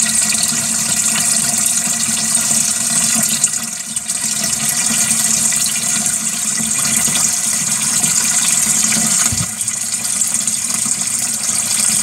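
Tap water pouring in a steady stream into the plastic wash tub of a Zeny portable twin-tub washing machine, splashing onto the pulsator as the tub fills.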